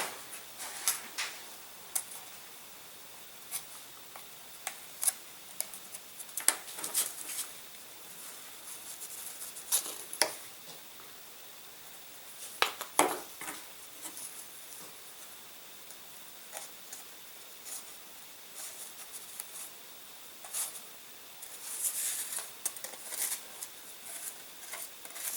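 Scattered light clicks and scrapes of small hand tool work as a control horn's slot is opened up and the horn is pushed in. The sounds come a few seconds apart, with a busier patch near the end.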